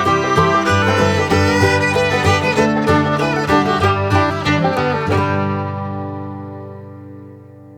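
Bluegrass-style background music with fiddle and banjo, ending about five seconds in on a held chord that slowly fades away.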